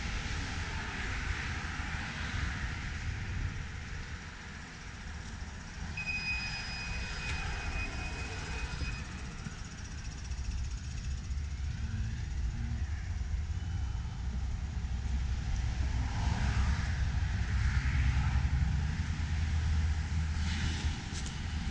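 Outdoor road traffic noise, swelling as vehicles pass, with wind rumbling on the microphone. A short high whine runs for a few seconds about six seconds in.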